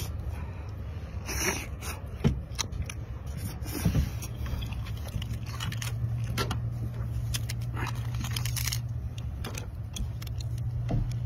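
Chewing and mouth sounds with scattered clicks and cracks as a cooked brown crab's shell is picked and pulled apart by hand, over a steady low hum.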